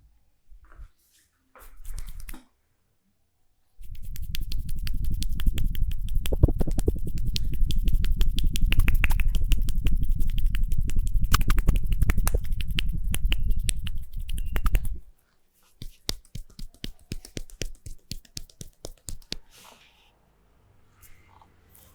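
Rapid percussive hand strikes of a massage, fast tapping or slapping on the body, kept up for about eleven seconds. After that come slower, separate strikes for a few seconds.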